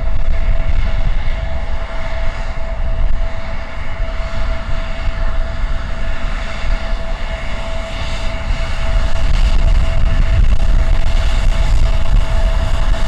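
Embraer 170's twin General Electric CF34 turbofans running at taxi power as the jet rolls toward the listener: a steady high whine over a low rumble, growing slightly louder in the second half.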